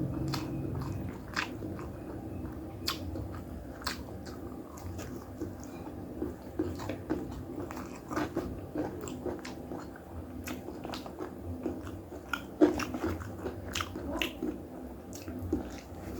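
Close-miked eating: steady chewing with many short, sharp crunches and mouth clicks, a person working through a mouthful of a nasi Padang rice meal.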